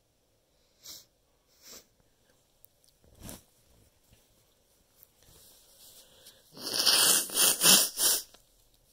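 Two short sniffs, then a loud run of several forceful blasts of air through the nose near the end, lasting about a second and a half. The nose is irritated by chhinkni, a sneeze-inducing herbal snuff.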